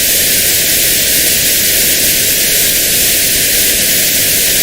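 Notched white noise: a loud, steady hiss with a band around 1 kHz cut out, played as a tinnitus frequency-matching test signal.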